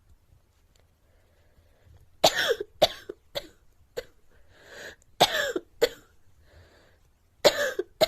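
A girl coughing, starting about two seconds in, in three bouts: each a hard cough followed by one or two shorter ones. Breaths are drawn in audibly between the bouts.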